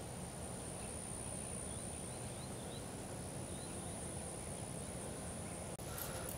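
Faint outdoor ambience: a steady, high-pitched insect trill over a low, even rumble, with a few faint bird chirps around the middle and a light handling bump near the end.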